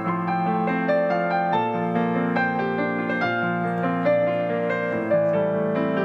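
Grand piano playing an instrumental piece: held chords with notes over them, changing about once or twice a second.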